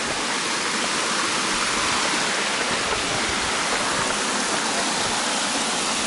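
Steady rushing of a rocky stream pouring over small cascades.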